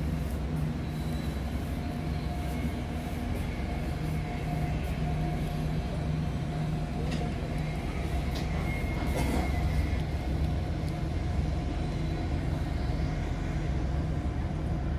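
Steady low drone of a cargo ship's engine and machinery heard on deck, with a few faint clicks about halfway through.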